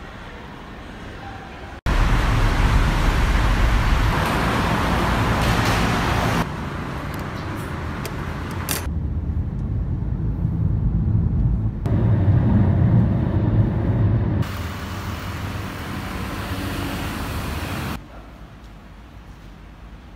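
Road traffic and car noise across several short clips that switch abruptly, among them the low hum inside a moving taxi.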